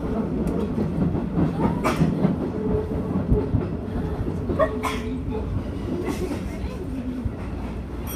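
A Shin-Keisei Electric Railway train rolling over points into a station, heard from inside the front car: a steady running rumble with wheels clacking over rail joints and crossings, several sharp clicks standing out, the strongest about two seconds in and again about five seconds in.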